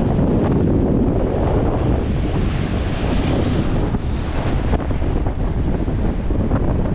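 Wind buffeting the microphone over the rush of breaking surf, the hiss swelling about halfway through.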